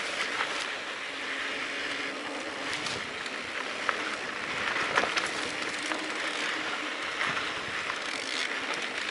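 Mountain bike descending a dry dirt singletrack: steady rolling hiss of the tyres on packed dirt, with scattered sharp ticks of small stones and the bike rattling over bumps.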